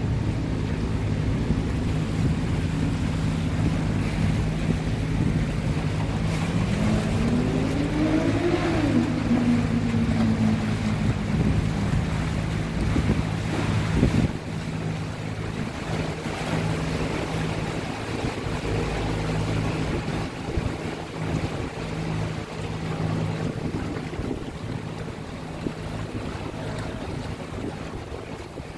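Small river tour boat under way: its motor runs with a steady low hum over the wash of water and wind on the microphone. Around seven seconds in, a second tone rises and then falls away, and the sound gets a little quieter about halfway through.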